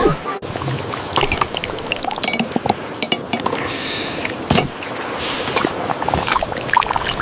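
Stop-motion sound effects: many small clicks and clinks, with two short hissing, pouring-like bursts of liquid sound about halfway through.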